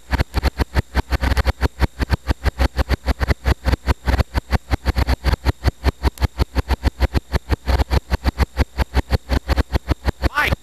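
Background music with a fast, steady, bass-heavy beat of about five beats a second, and a rising sweep near the end.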